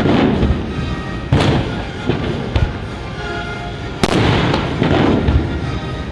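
Two cannon shots from USS Constitution's guns, one about a second and a half in and another about four seconds in, each a sharp boom followed by a long rolling echo. Background music plays underneath.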